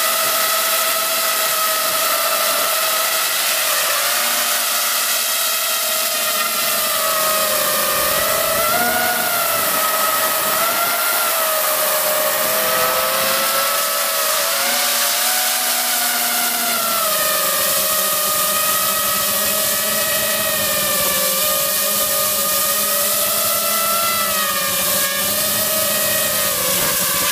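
FPV quadcopter's brushless motors and propellers whining steadily, heard from a camera mounted on the drone. The pitch wavers up and down as the throttle changes.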